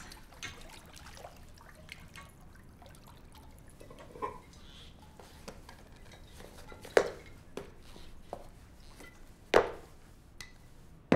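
Bathwater in a bubble-filled tub dripping and lightly sloshing, with two short, louder liquid sounds about seven and nine and a half seconds in.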